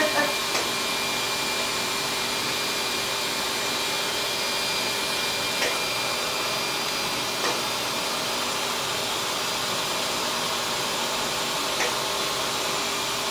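Surgical smoke evacuator running with a steady whir and hiss while a carbon dioxide laser cuts, with a few faint ticks.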